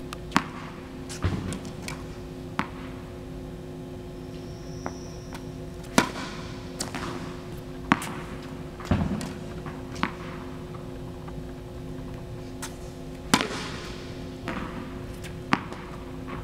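Tennis balls bouncing on an indoor hard court: about nine sharp, separate knocks at uneven intervals over a steady low hum.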